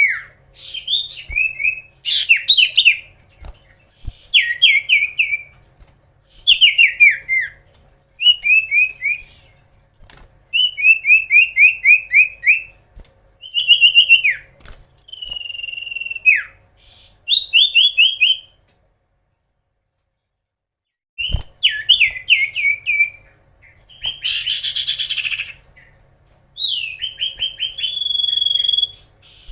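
Common iora (cipoh) singing non-stop in quick phrases of short whistled notes, each sliding downward, about one phrase a second, with a silence of a couple of seconds midway. Near the end come a harsh rasping call and a long held whistle.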